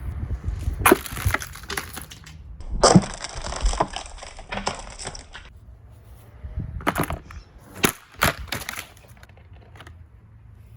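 Plastic Mainstays box fan being hit and broken: a series of sharp cracks and clattering impacts, the loudest about three seconds in.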